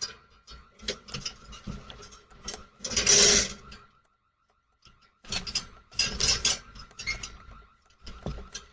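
Irregular clattering and knocking, with a louder rush of noise about three seconds in and a short pause near the middle.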